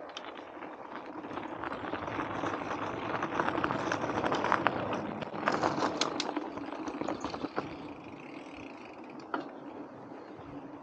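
Mountain bike riding along a dirt trail: tyres rolling and crunching over dirt and gravel, with many small clicks and rattles from the bike. It grows louder in the middle and eases off near the end.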